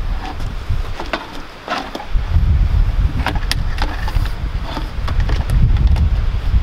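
Wind buffeting the microphone with a low, uneven rumble that grows loud about two seconds in. Over it come sharp clicks and crackles from a vinyl siding outside corner piece being handled and split down its length.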